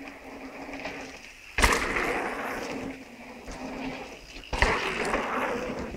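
Mountain bike riding a dirt jump line: knobbly tyres rolling on packed dirt, with two sudden thumps about a second and a half in and again about three seconds later, each followed by a rush of tyre noise as the bike lands and rolls on.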